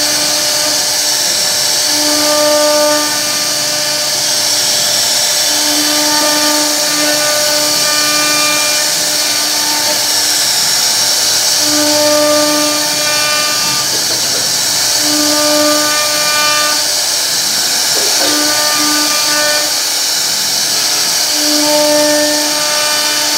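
CNC router spindle carving a wooden door panel, running with a steady high whine of cutting. A low hum with overtones cuts in and out in stretches of about a second, every few seconds.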